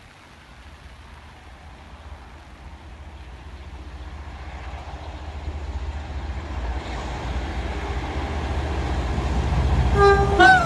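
Pair of Class 47 diesel locomotives approaching at speed with a passenger train, the rumble growing steadily louder. Near the end the leading locomotive sounds its horn: two short notes, the second a little lower.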